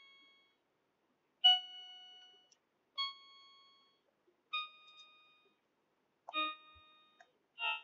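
A toddler playing a toy electronic keyboard, pressing single keys one at a time: five separate notes about a second and a half apart, each fading quickly.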